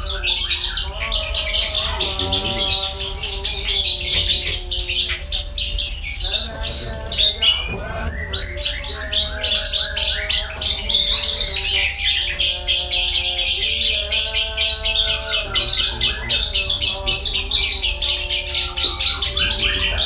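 Branjangan (Horsfield's bush lark) singing without a break: a fast, dense run of high twittering and chattering notes.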